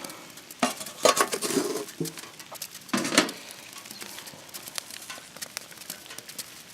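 Metal clinks and clatters, loudest about one and three seconds in, as a char tin and its contents are handled. Light rain patters in scattered ticks in the second half.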